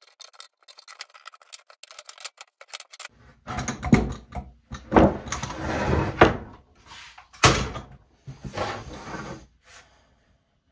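Woodworking clamps being loosened and taken off a freshly glued wood panel: a run of quick light clicks, then about five louder clanks and knocks with rattling between them as the clamps come off and are set down.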